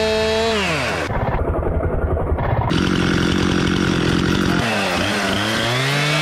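Stihl MS261 two-stroke chainsaw running. Its engine speed drops off about a second in, it runs steadily for a few seconds, and its revs dip and then climb again near the end.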